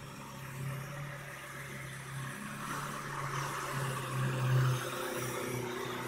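A cab-over truck's engine running steadily as the truck drives through deep floodwater, with the rush and splash of the water it pushes aside growing louder as it comes closer.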